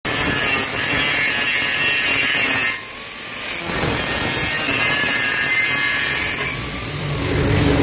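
Angle grinder with a cut-off disc cutting through square steel tube, giving a loud, high-pitched grinding screech. The cut drops away briefly about three seconds in, then resumes.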